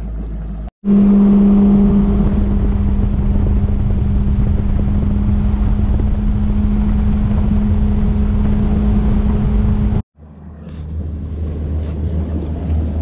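Bass boat's Mercury Pro XS outboard engine running steadily, a loud even drone over a rushing noise. About ten seconds in it cuts off abruptly and gives way to a quieter, deeper engine hum.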